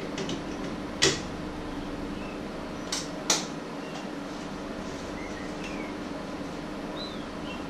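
Three sharp clicks or knocks of kitchen items being handled on a counter: one about a second in, then two close together around three seconds in, over a steady background hum.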